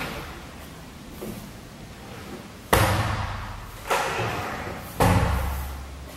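Three heavy thuds about a second apart, each ringing on in the bare, empty room.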